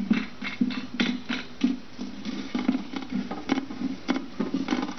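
Berkey filter's plastic wing nut being hand-tightened on its threaded stem against the stainless-steel chamber lid: irregular small clicks and scrapes of plastic and fingers on the metal, as the rubber washer begins to grip.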